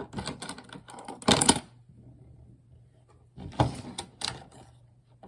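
Small plastic fidget toys clicking and rattling as they are handled, in two bursts of rapid clicks, one at the start and one a little past halfway.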